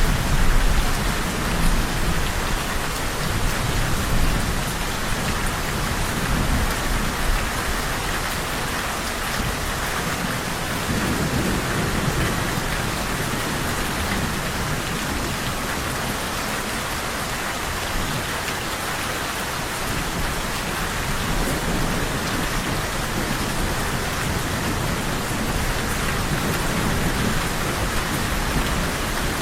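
Steady, even rainfall, with low thunder rumbling in now and then, most strongly in the first seconds and again about eleven seconds in.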